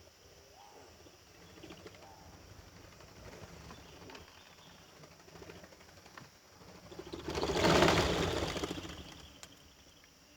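A burst of birds' wings flapping, swelling and fading over about two seconds near the end.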